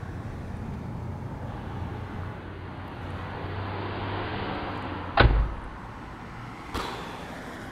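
A car door slammed shut once, about five seconds in, with a heavy low thud. A lighter click follows about a second and a half later, over a steady background hiss.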